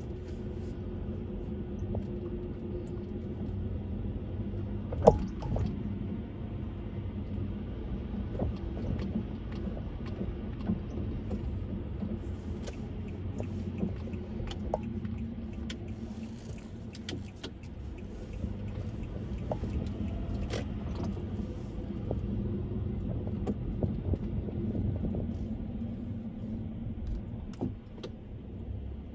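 Steady road rumble of a car driving at speed, with small rattles and clicks throughout and one sharp knock about five seconds in.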